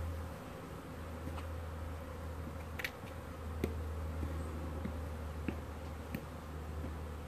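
Many honeybees buzzing as they fly and hover in front of the hive entrance, a steady hum of young worker bees on their orientation flights. A few short ticks stand out.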